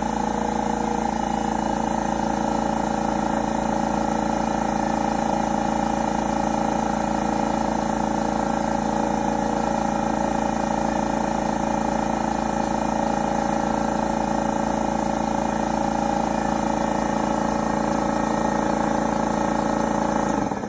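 Husky air compressor running steadily and loudly as it builds tank pressure, then shutting off abruptly at the very end when the newly fitted Square D pressure switch reaches its cut-out at about 110 psi.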